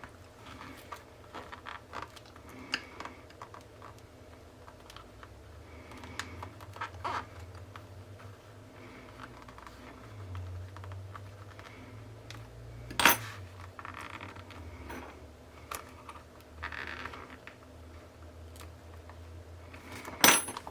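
Hands handling a stapled paper zine on a tabletop: soft page rustles with scattered small clicks and taps, and a sharp click about two-thirds through and another near the end.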